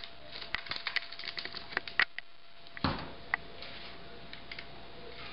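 Light clicks and knocks of metal linear-actuator axes and their stepper-motor modules being handled and fitted together, a scatter of quick taps in the first two seconds and a few sharper knocks around the middle.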